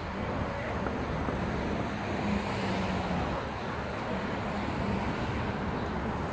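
Steady city street traffic noise, with a low engine hum from a vehicle that swells briefly a couple of seconds in.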